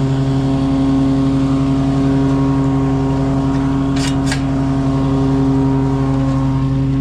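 Steady, even motor hum with a fixed pitch, like an engine or machine idling. Two short clicks about four seconds in.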